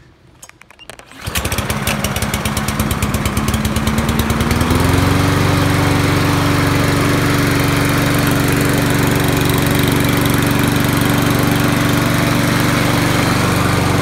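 Craftsman 159cc single-cylinder lawn mower engine pull-started, catching about a second in and running steadily. Near the middle of the run its speed steps up slightly and then holds.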